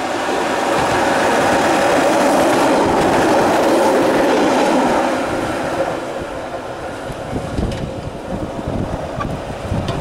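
Keihan Ishiyama-Sakamoto Line electric train passing close on the track, its wheels running on the rails loudly for about five seconds, then fading away down the line.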